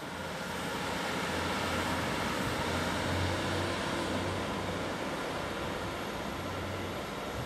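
Class 156 Sprinter diesel multiple unit running along the line, the drone of its underfloor Cummins diesel engines mixed with the rumble and hiss of wheels on rail. It grows louder over the first few seconds, then eases a little.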